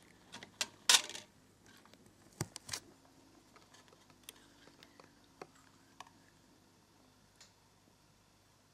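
Small glass vials clinking against each other and the metal plate they stand on as they are handled: a quick cluster of sharp clinks about a second in, two more a second and a half later, then a few faint ticks of metal tweezers on glass.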